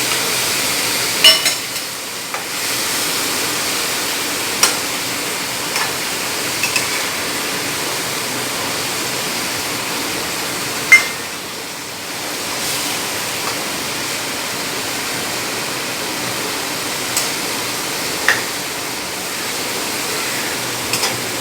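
Gravy with fried catfish pieces simmering and sizzling steadily in a pan. A few sharp clinks of a spatula against the pan break in now and then, the loudest about eleven seconds in.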